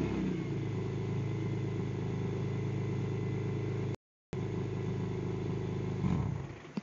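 BMW M3 with a custom exhaust idling steadily after a rev, picked up on a phone microphone. The sound cuts out completely for a moment about four seconds in. Near the end there is a brief rise, then the sound falls away, with a short click.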